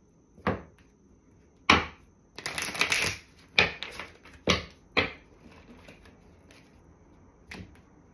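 Tarot cards being shuffled and handled: several sharp slaps and taps of cards, with a brief stretch of shuffling a little over two seconds in.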